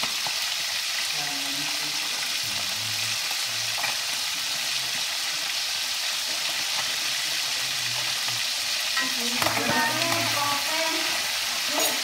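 Pieces of eel frying in hot oil in a wok, a steady sizzle. A few short clicks and a brief pitched sound come near the end.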